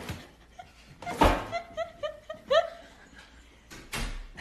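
A sharp thump, then a person laughing in a quick run of short "ha" bursts. A second, softer thump comes near the end.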